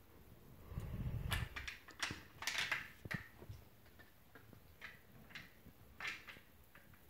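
Metal clicks and knocks from a SIG Sauer rifle being handled and fitted back together, with a dull handling rumble about a second in and scattered sharp clicks after it.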